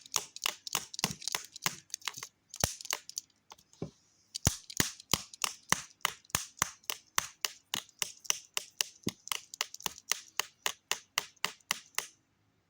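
Rapid sharp whacks on a TV remote, about three a second with a short pause about four seconds in, struck over and over to knock debris out of a barely working remote.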